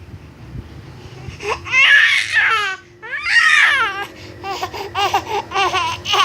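Baby crying: two long, loud, wavering wails, then a run of shorter, choppier cries.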